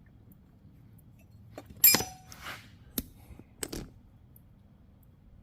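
Small metal parts and tools clinking on a workbench while felling dogs are fitted to a chainsaw: four sharp clinks, the first loudest and ringing briefly.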